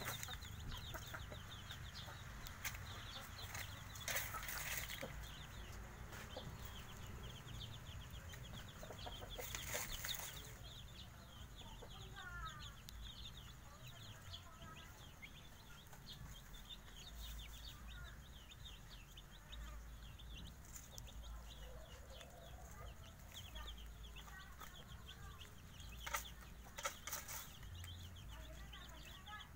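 Five-day-old Javanese village chicks peeping continually in short, high chirps, with the mother hen clucking now and then. A few brief rustles in dry leaves come about four seconds in, around ten seconds, and again near the end.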